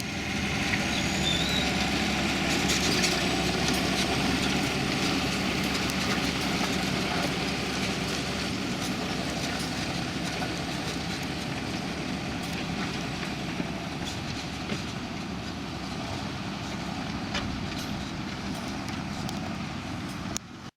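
Tractor diesel engine running steadily in the field, with scattered clicks and rattles. It starts abruptly, eases slightly, and cuts off suddenly near the end.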